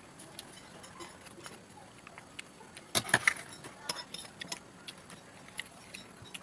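Eating at a table: scattered small clicks and clinks of a spoon and fingers against plates and food, with a quick cluster of sharper clinks about three seconds in.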